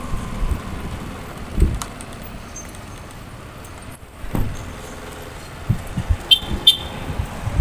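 Riding noise of a Suzuki Avenis 125 scooter heard through a phone in a mirror-mounted holder: a steady wind-and-road rush with several low thumps as the mount jolts over bumps, and a burst of rattling clicks about six seconds in.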